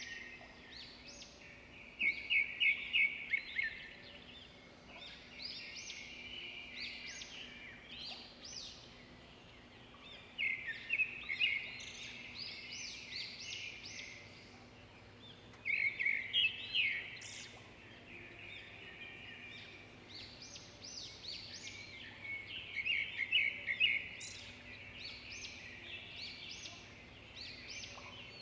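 Birds chirping in repeated bursts of quick, high calls every few seconds, over a faint steady hum.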